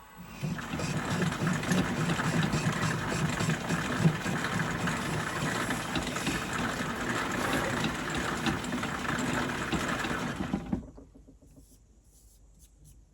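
1944 Logan 210 metal lathe taking a cut on a chuck backing plate: the tool scraping across the spinning metal with the drive running. It is a dense, crackly, steady noise that starts about half a second in and stops abruptly near the end.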